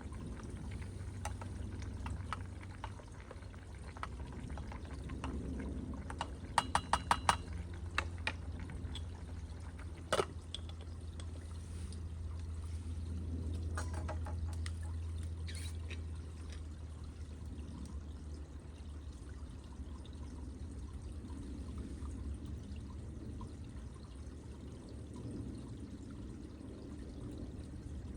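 Steady sound of moving liquid over a low rumble, with a quick run of sharp clicks about seven seconds in and a single click around ten seconds.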